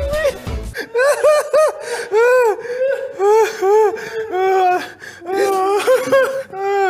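Men laughing hard: a high-pitched, breathless laugh in a string of short squeals, each rising and falling in pitch.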